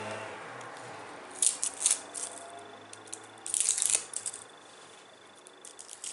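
Dry papery garlic skin crackling as a clove is peeled with the fingers: two short bursts of crackle about one and a half and three and a half seconds in, then a few lighter ticks near the end.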